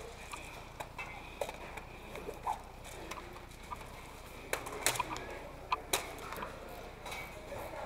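Faint, scattered sharp snaps of airsoft guns firing: single shots at irregular intervals, a few close together around the middle.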